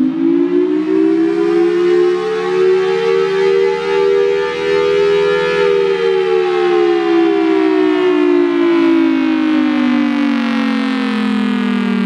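Federal Sign & Signal Thunderbolt 1003 siren sounding its two-tone chord from its 5/6 port chopper. The pitch climbs slowly to a peak a little past the middle, then falls steadily.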